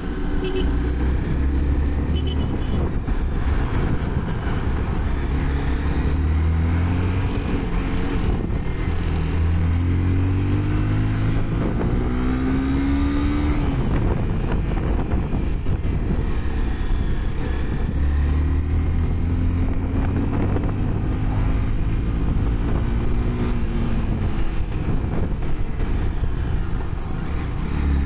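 Honda CBR250R single-cylinder motorcycle engine running under way, its pitch repeatedly climbing and dropping as the throttle is rolled on and off through the bends, over steady wind and road noise.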